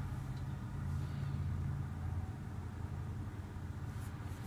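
Audi Q7 3.0T's supercharged V6 idling, a steady low hum heard inside the cabin. A few faint clicks near the end.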